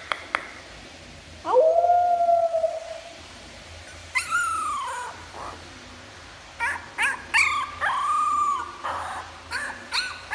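Young puppy howling and whimpering: a long, steady howl about a second and a half in, a falling cry at about four seconds, then a string of short yelps and one more long cry in the second half.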